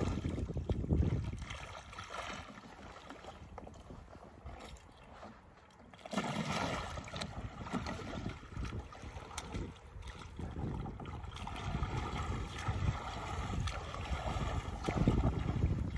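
Water splashing and sloshing around a capsized sea kayak as it is rolled back upright. A quieter lull of a few seconds while the kayak is upside down gives way to churning splashes of the paddle sweep and the roll-up, loudest near the end.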